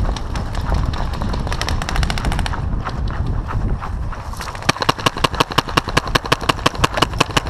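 Paintball markers firing in rapid strings of pops. A quieter, faster burst comes about two seconds in, then from about four and a half seconds on a loud, close string of shots at about nine a second.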